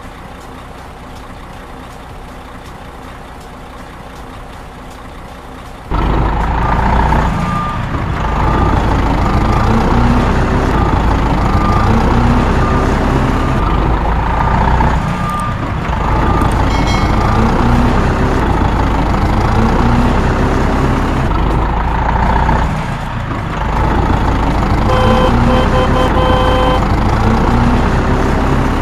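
Heavy truck engine running. About six seconds in it abruptly gets much louder and its pitch rises again and again as it revs. Near the end there is a short run of beeps.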